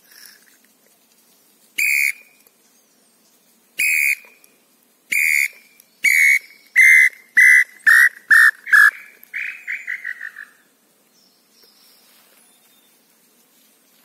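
Wooden tinamou call (pio) blown to imitate the tataupa tinamou (lambu pé-roxo): three separate whistled notes a second or so apart, then a run of notes that comes faster and falls in pitch, ending in a quick falling trill.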